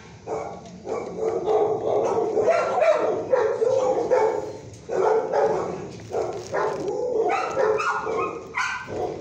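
Dogs barking in a shelter kennel block, one bark after another with hardly a pause.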